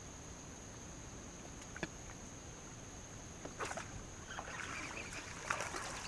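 Faint splashing and crackling of a hooked fish thrashing at the water's surface during the last two seconds, after a couple of single sharp clicks, over a steady high insect whine.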